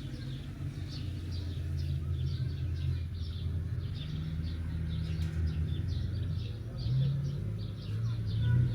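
Many small birds chirping over a steady low engine hum.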